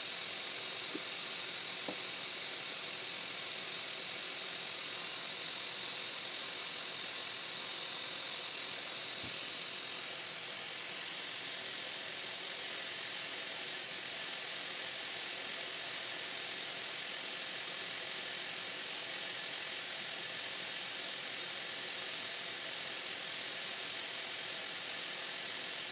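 Carpet-cleaning extraction vacuum pulling air through its hose and hand upholstery tool: a steady, high whistling hiss that holds even throughout.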